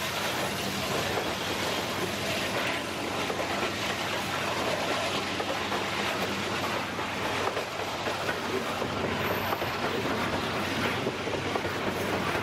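Canadian Pacific freight train's open-top freight cars rolling past at close range: a steady rumble and rattle of steel wheels on the rails.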